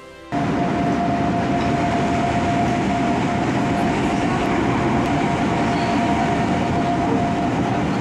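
Commuter train running, heard from inside the carriage: a steady running noise with a steady whine held at one pitch, starting abruptly just after the start.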